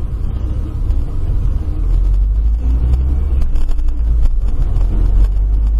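Car driving: a steady low rumble of engine and road noise that grows a little heavier about two seconds in, with a few faint clicks later on.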